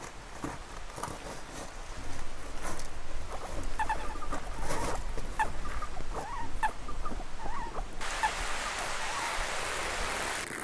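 Guinea pig squeaking in a run of short, high chirps over a low rumble. About eight seconds in, this gives way abruptly to the steady rush of river water churning among chunks of ice.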